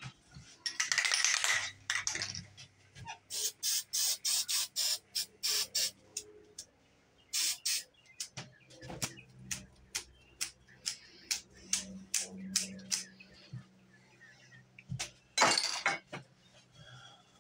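Aerosol spray paint can: a hiss of about a second, then a long run of quick short spurts, then another hiss of about a second near the end. The short spurts go with fine paint specks being spattered onto the black area.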